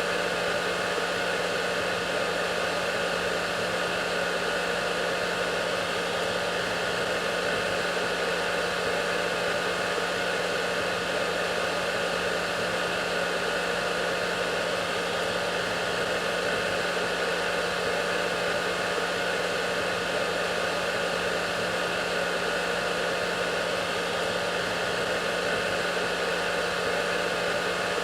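Hair dryer running steadily: an even rushing hiss of blown air with a constant low motor hum underneath and no change in speed.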